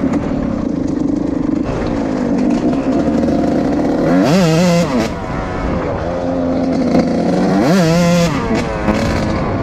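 Suzuki RM 125 two-stroke single-cylinder engine running, revved hard twice: the pitch climbs sharply and falls back about four seconds in and again about eight seconds in, with a steadier engine note between.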